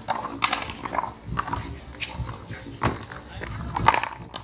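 Rubber handball in a doubles rally: a string of sharp smacks as it is struck by hand and rebounds off the concrete wall and court, with players' shouts between the hits.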